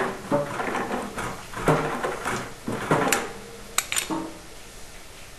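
Metal pipe fittings knocking and clinking as the black iron union and tee on a water heater's gas line are handled. The clinks come about twice a second and stop about three seconds in, followed by two sharp metallic clicks just before four seconds in.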